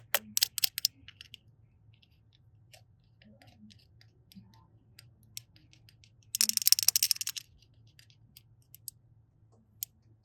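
Small clicks and taps of objects being handled, with a cluster at the start and about a second of dense crackling about six seconds in.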